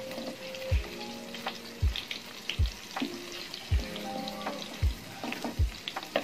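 Paneer cubes shallow-frying in hot mustard oil in a kadai, a steady sizzle with light clicks from a wooden spatula scooping them out. Background music plays over it, with a deep beat about once a second that is the loudest thing heard.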